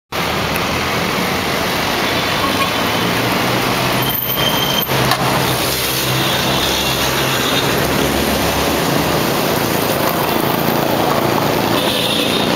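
Road traffic going by: cars and a box truck passing, a steady noise of engines and tyres.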